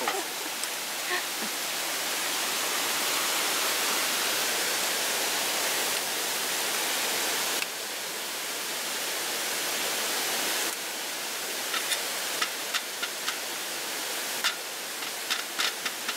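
Steady rushing of a stream. Over the last few seconds come a series of sharp taps as a metal fork stabs chicken on a plastic cutting board.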